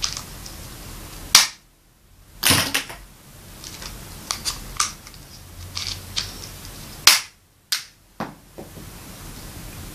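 Yellow plastic toy crossbow clicking and snapping as it is cocked and fired with ping pong balls: a sharp snap about a second and a half in and another about seven seconds in, with lighter plastic clicks between.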